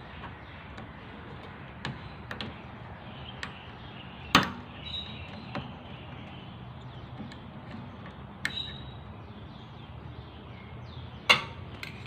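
Irregular sharp clicks and knocks of small parts being handled inside an opened microwave oven's chassis, as the blown fuse is worked out of its holder. The loudest knocks come about four seconds in and again near the end.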